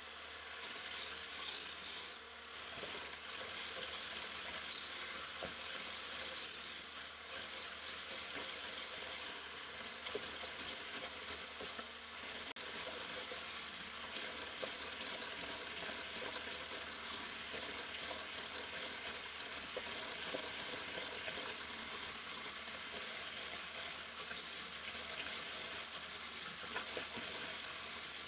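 Handheld electric immersion blender switched on and running steadily, whipping heavy cream with powdered sugar in a tall plastic beaker.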